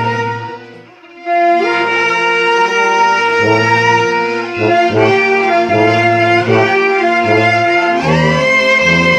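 Violins and a low brass horn playing a hymn together in held, sustained chords over a bass line moving note by note. The music fades out briefly at a phrase end a little after the start and comes back in about a second later.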